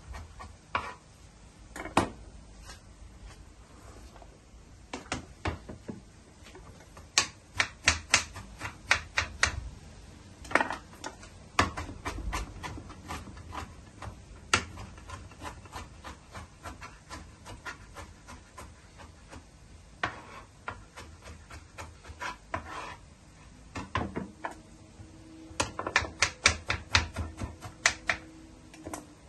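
Chef's knife chopping onion and then a green vegetable on a plastic chopping board: quick runs of sharp knocks as the blade meets the board, with scattered single cuts between runs. The fastest runs come about a quarter of the way in and near the end.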